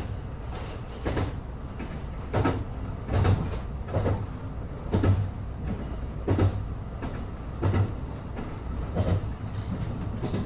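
Electric train running at speed on the Maizuru Line: a steady low rumble, with the wheels clicking over rail joints about every second or so.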